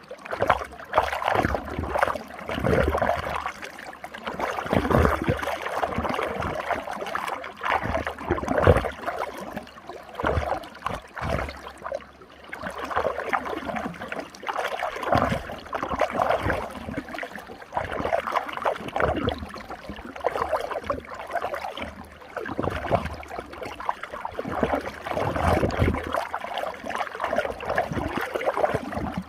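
Running water swirling and gurgling in a whirlpool, with irregular surges and occasional low sloshing thumps.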